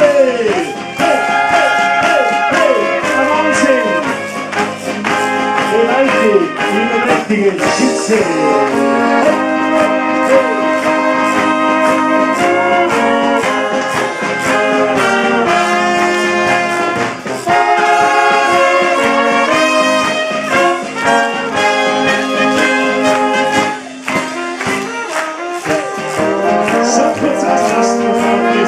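Brass band of tubas, trumpets, clarinet and saxophone playing a tune with a steady beat, with people clapping along in time.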